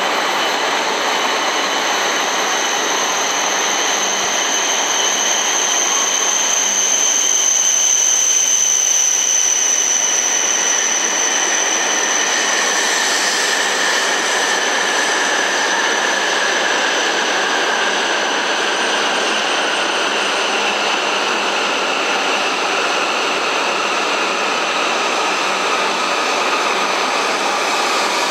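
Shinkansen trains moving along the platform, first an E5 series and then an E7 series: a steady rushing noise with high whines on top. In the second half a whine slowly falls in pitch as the E7 slows on arrival.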